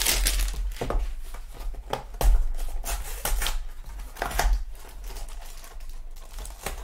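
A Donruss Optic football trading-card hanger pack being torn open, its wrapper and packaging crinkling in a run of short rustles and crackles.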